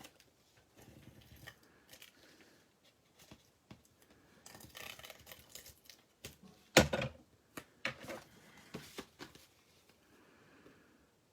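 Paper and card-making supplies being handled on a craft table: rustling paper, light taps and clicks, with a sharp knock a little under seven seconds in as something is set down.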